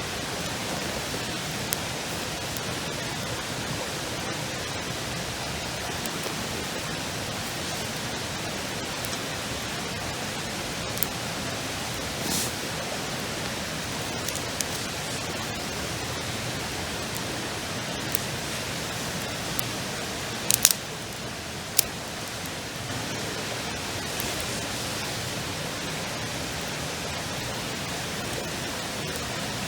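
Steady, even rushing noise with a few sharp, brief crackles scattered through it. The loudest crackles come close together about two-thirds of the way in.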